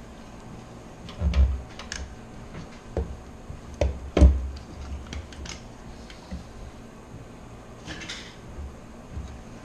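Clicks, knocks and clatter of hard computer parts being handled inside a PC case while a liquid CPU cooler is being fitted, with louder thumps about a second in and about four seconds in, and a brief rustle near the end.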